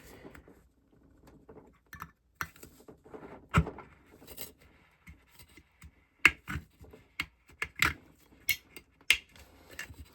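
Hole being cut into a tin soup can by hand: irregular metallic clicks, scrapes and clinks, with a few sharper snaps.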